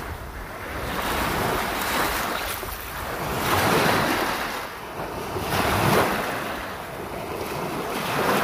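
Lake waves washing onto the shore, swelling and fading every couple of seconds, with wind buffeting the microphone.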